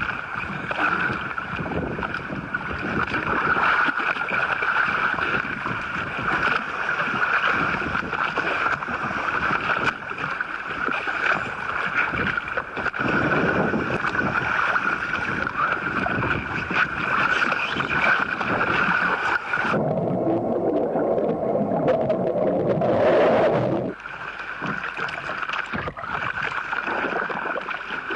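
Water splashing and sloshing against a small boat's side as a large grouper is handled at the surface, over a steady high-pitched whine. About twenty seconds in, the whine drops out and a denser, muffled wash takes over for about four seconds.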